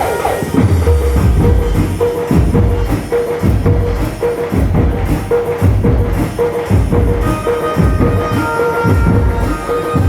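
Dhumal band music: a loud percussion passage of heavy drum strokes at a driving beat with tambourine-like jingles. A high melody line comes back in over the drums near the end.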